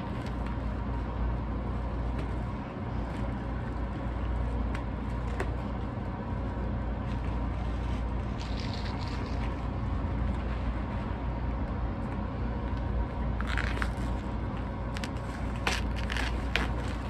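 Plastic shrink-wrap crinkling and rustling as it is peeled off a vinyl LP sleeve, with short crackles about eight, thirteen and sixteen seconds in, over a steady low hum.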